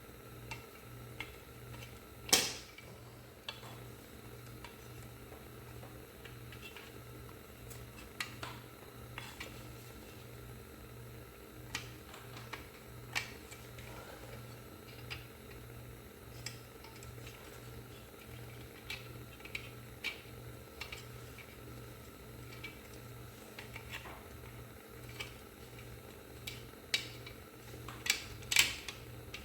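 Irregular metallic clinks and clanks of tools and metal parts being handled, with a sharp clank about two seconds in and several more near the end. A low hum pulses evenly underneath.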